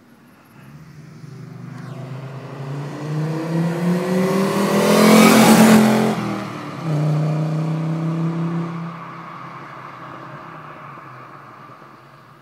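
Audi 80 quattro's 2.3-litre five-cylinder engine accelerating past, its note climbing in pitch and loudness to a peak as the car passes about five seconds in. After a short drop, it carries on with a steadier, lower note and fades as the car pulls away down the road.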